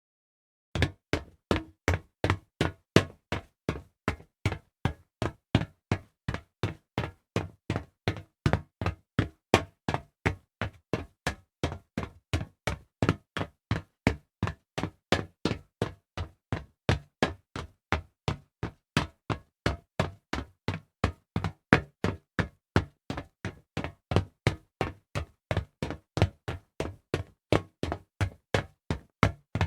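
Fast footsteps on hollow metal, a quick even pace of close to three steps a second, starting about a second in. Each step is a sharp knock with a short low ring.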